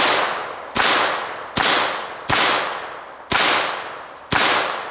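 Six single aimed shots from a chrome Auto Ordnance Thompson submachine gun in .45 ACP, fired one at a time about a second apart. Each report has a long echoing tail that fades before the next shot.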